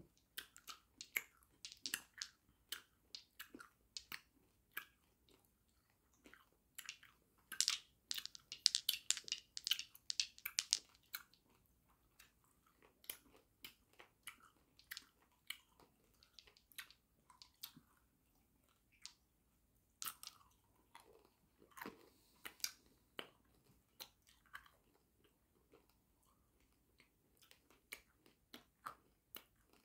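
Hard watermelon jawbreakers being sucked and chewed in the mouth: irregular wet mouth clicks and hard candy clacking against teeth. The clicks thicken into a dense, louder run about eight to eleven seconds in and again around twenty to twenty-three seconds.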